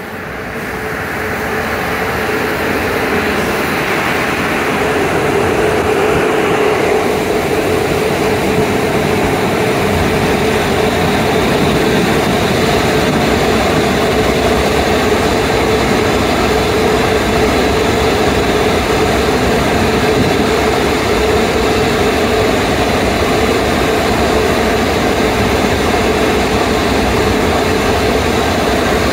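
Automatic tunnel car wash machinery running: a loud, steady rushing noise with a steady hum under it. It grows louder over the first few seconds, then holds.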